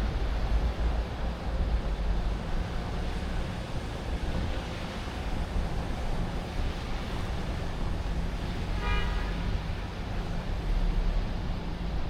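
Steady city traffic noise with a low rumble, and a short car horn toot about nine seconds in.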